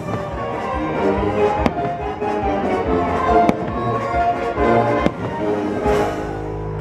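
Fireworks bursting with several sharp bangs over the fireworks show's accompanying music.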